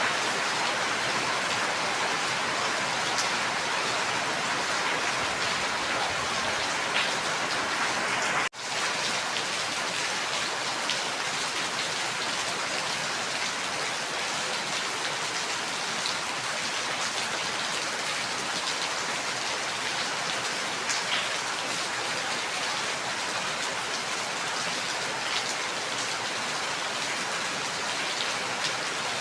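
Steady heavy rain falling, with scattered individual drops ticking through the constant hiss. The sound drops out for a split second about eight seconds in, then carries on as before.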